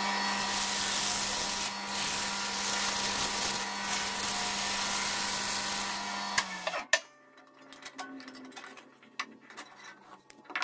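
Bandsaw running and cutting through a thick wooden block, a steady motor hum under the hiss of the blade in the wood; it stops about six and a half seconds in. A few light knocks follow as the wooden pieces are handled.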